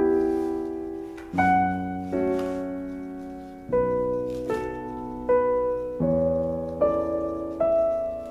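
Slow solo piano music: chords struck about once a second, each ringing and fading before the next.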